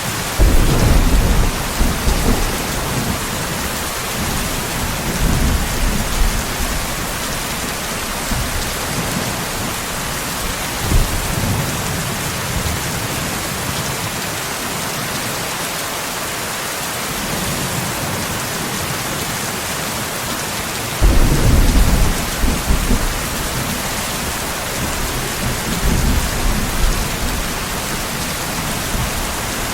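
Steady heavy rain hissing, with thunder rumbling in several rolls. The loudest roll starts suddenly about two-thirds of the way through, and smaller ones come near the start and toward the end.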